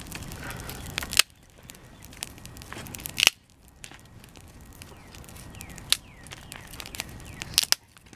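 Campfire of dry grass and sticks burning, crackling steadily with a few sharp, loud pops.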